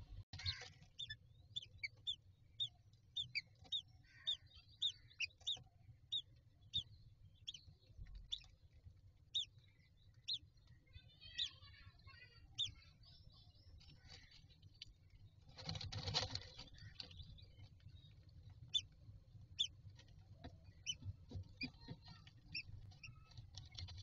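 Faint, thin high peeps repeating about once or twice a second, from newly hatched common myna chicks in the nest box, coming quicker near the end. A burst of rustling in the nest straw comes about sixteen seconds in, over a low steady hum.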